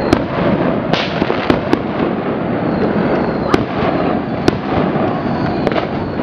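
Many fireworks and firecrackers going off at once: a dense crackle throughout, with sharp bangs every second or so, several of them loud.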